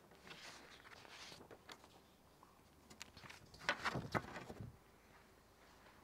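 Sheets of paper rustling and crackling as they are handled and gathered up from a music stand, loudest in a burst about four seconds in.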